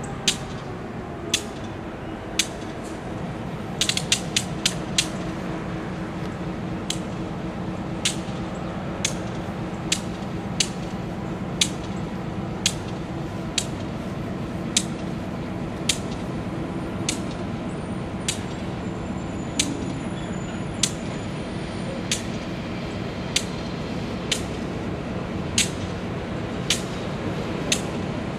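EMD GP38 diesel-electric locomotive idling with a steady low drone from its V16 two-stroke engine, while sharp clicks sound about once a second, with a quick cluster of them about four seconds in.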